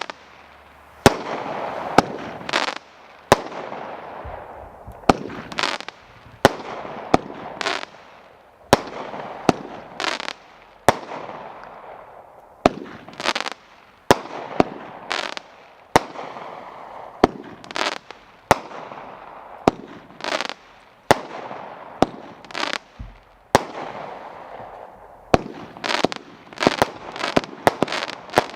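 Red Rhino 'Blaze of Glory' consumer fireworks cake firing shot after shot: a sharp report about once a second, each followed by a crackling hiss, the shots coming faster near the end.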